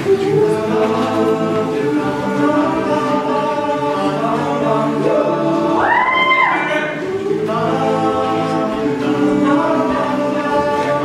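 All-male a cappella group singing sustained chords in close harmony. About six seconds in, one voice sweeps up high and back down above the chords.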